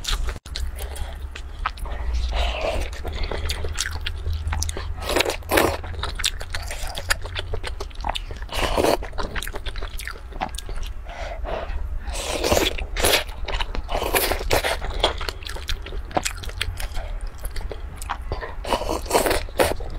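Close-miked eating from a paper cup: biting and chewing with wet mouth clicks, and louder slurps and bites every few seconds.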